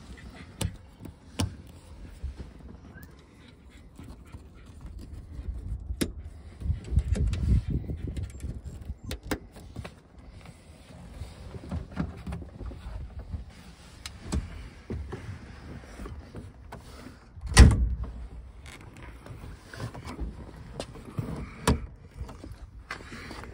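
Scattered clicks, knocks and handling noise as a 1969 MGB roadster's soft top is fastened to the windscreen header rail, with one loud thump about seventeen seconds in.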